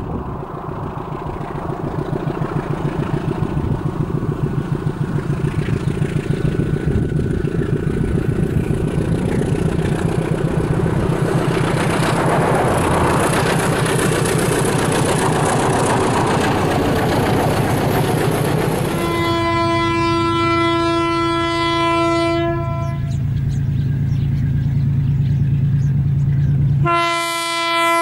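A 35 Class GE U15C diesel locomotive hauling a freight train, its engine throbbing and growing louder as it approaches, with wagons rumbling past. After about 19 s a diesel locomotive horn sounds a long blast. A second blast of the same pitch starts just before the end.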